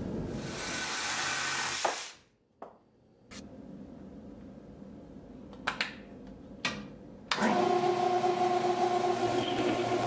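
A hiss for about two seconds, then a quiet stretch with a couple of clicks. About seven seconds in, a metal lathe switches on and runs with a steady whine of several tones.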